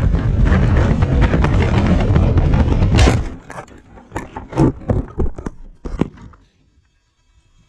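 Sebart 2.2 RC airplane crashing: steady, dense rushing noise broken about three seconds in by a hard impact, then a run of knocks and scrapes that die away over a few seconds as it hits the ground and tumbles, typical of a crash after signal loss.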